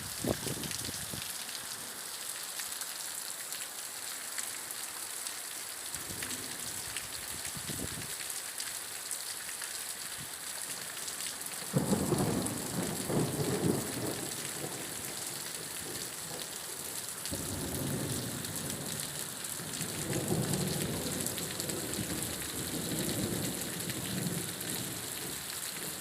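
Steady rain falling, with low rolls of thunder coming in about halfway through and again in waves near the end.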